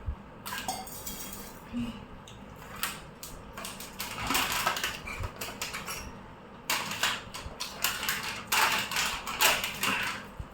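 Dishes and cutlery clattering: utensils clinking and scraping on plates, in short scattered clicks and denser clusters about four seconds in and again from about seven to ten seconds.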